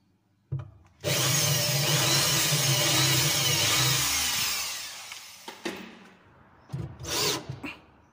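Corded electric drill boring into a plywood cabinet side for about three seconds, then spinning down. A few short knocks follow near the end.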